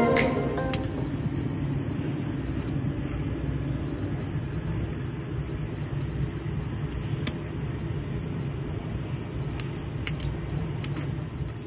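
A steady low mechanical hum, like a fan or motor running, with a few light clicks.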